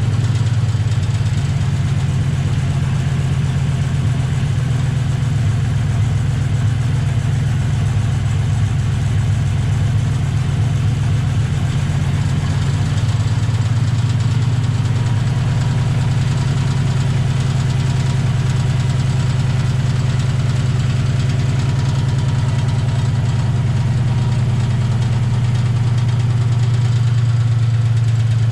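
2008 Ford Mustang GT's 4.6-litre V8 idling steadily, with a misfire on the passenger-side cylinder bank.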